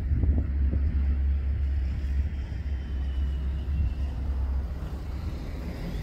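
Steady low rumble of wind buffeting the microphone, rising and falling in strength.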